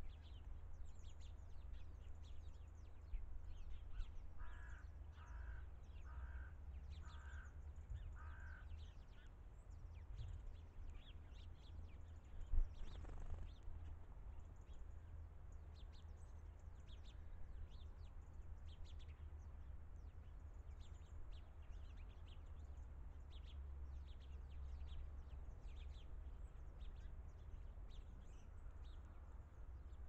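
Wild birds calling: short high chirps from small birds keep coming, and a few seconds in another bird gives five calls about a second apart. About twelve seconds in there is a single thump, over a steady low rumble.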